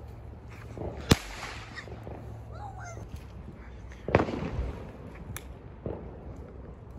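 Consumer fireworks going off: a sharp, loud bang about a second in, then a second bang about four seconds in that trails off over half a second.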